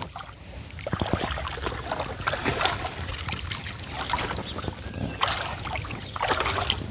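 Irregular water sloshing and splashing, with scattered small knocks.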